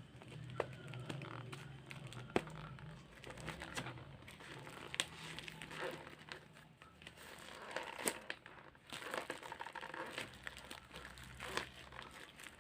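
Plastic packaging crinkling and crackling as it is handled and opened, with scattered sharp clicks and a low hum underneath.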